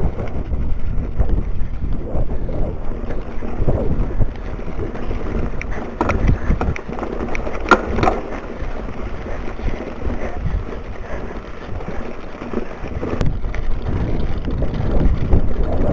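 Wind buffeting an action camera's microphone over the rumble and rattle of a mountain bike rolling down a rocky dirt trail. A few sharp knocks stand out: about six seconds in, around eight seconds, and again near thirteen seconds.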